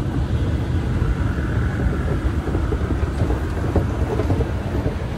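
Steady low rumble of an underground MRT station, heard while riding an escalator.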